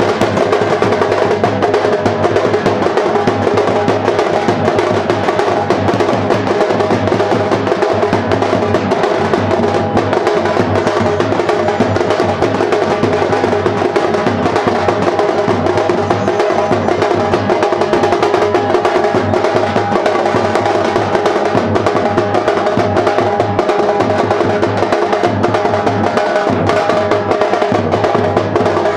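Theenmaar band drums playing a fast, dense, unbroken beat.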